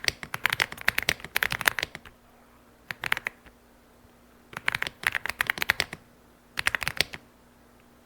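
Typing on a gasket-mounted mechanical keyboard with linear switches (Aula F75, LEOBOG Reaper), heard close up: fast runs of key clacks in four bursts with short pauses between.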